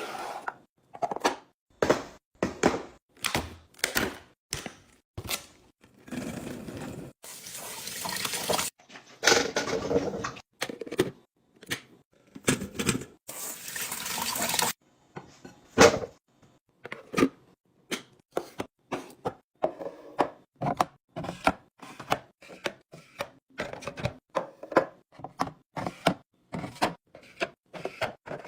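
Kitchen restocking sounds: plastic containers and packaging clicking and knocking as they are handled and set down, many short taps in quick succession. Water runs in two stretches of a few seconds, from about six to ten seconds in and again around thirteen seconds in.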